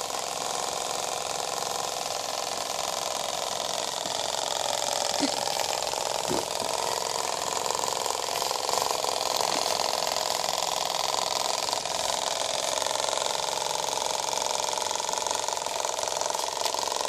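Small battery-powered hobby motor of a scribbling machine running steadily, buzzing and rattling the plastic bowl it is mounted on.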